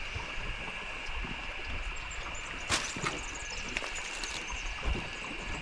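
River ambience from a small boat: a steady high-pitched hum over low water and wind noise, with a few sharp knocks, the loudest about a third of the way in.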